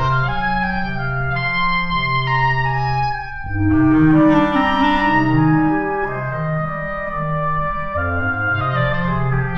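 Calm instrumental music: held notes and chords that change about once a second, swelling louder about four seconds in.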